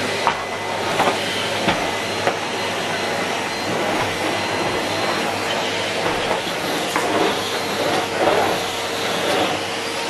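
Numatic Henry Turbo HVT160 vacuum cleaner running steadily as its floor tool is pushed over carpet: a steady rushing hiss over a low hum. A few sharp clicks come in the first couple of seconds.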